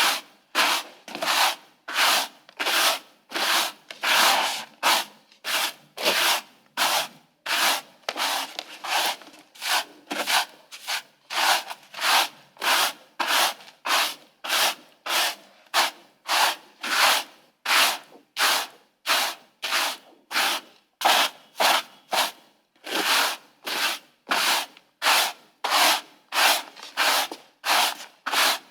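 Broom sweeping in steady, even strokes, about two swishes a second.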